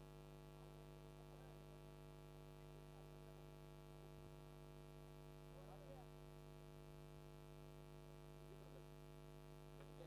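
Near silence with a steady electrical mains hum.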